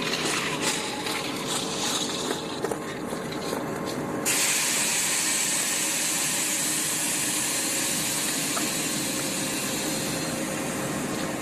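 Compressed air hissing from a train's air brakes, starting suddenly about four seconds in and holding steady, over the running diesel of a ТЭП70 locomotive.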